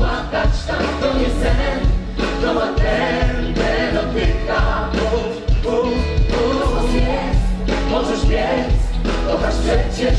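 A gospel-pop vocal group's singers performing a song in close harmony, backed by a band with a heavy bass line and a steady beat.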